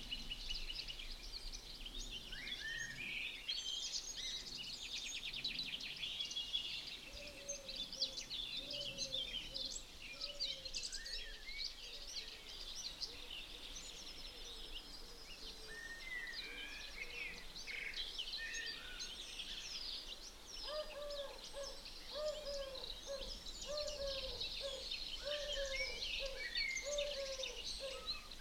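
Outdoor birdsong chorus: many small birds chirping and trilling at once. From about a quarter of the way in, a lower call from another bird repeats roughly once a second, in two long runs.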